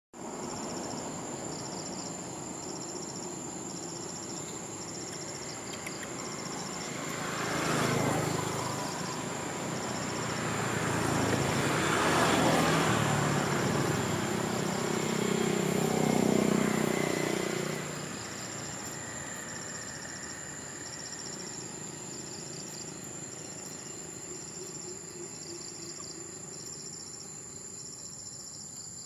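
Insects chirping steadily in evenly repeating high pulses over a constant high whine. Through the middle a motor vehicle passes, its engine rising and falling twice before fading.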